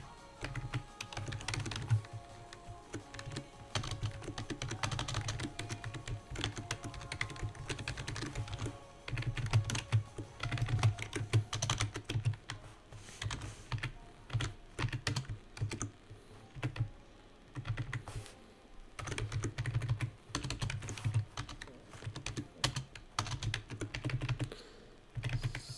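Computer keyboard typing in runs of keystrokes separated by short pauses.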